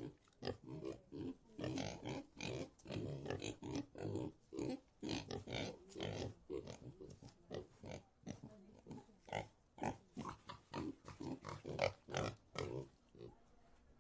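Pigs grunting in a pigsty: many short, overlapping grunts, several a second, that die down near the end.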